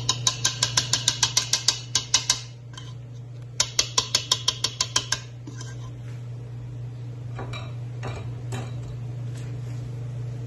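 A utensil clinking rapidly and evenly against a bowl, about eight ringing clinks a second, in two runs with a short pause between, as when beating a batter by hand. A few faint scattered ticks follow, over a steady low hum.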